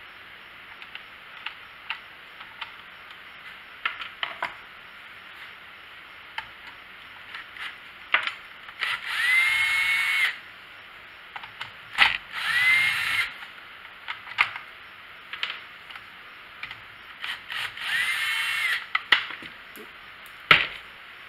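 Cordless drill-driver backing Torx screws out of a chainsaw's pull-start cover: three short runs, each rising to a steady whine. Light clicks and taps of handling the tool and screws come between the runs.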